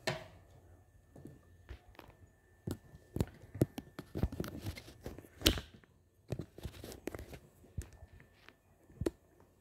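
Irregular light clicks, knocks and rustles of handling in a small kitchen, with one louder knock about five and a half seconds in.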